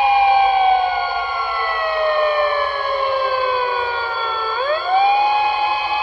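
Siren wailing. Its pitch falls slowly for about four and a half seconds, then sweeps quickly back up and holds high near the end.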